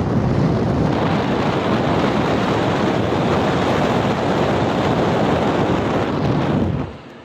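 Strong airflow from a 2010 Everstar portable air conditioner's fan on high, blowing straight onto the microphone: a loud rushing buffet that starts and cuts off abruptly near the end.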